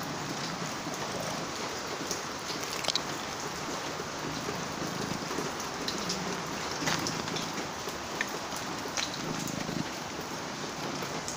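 Steady rain falling, with a few sharp ticks over it.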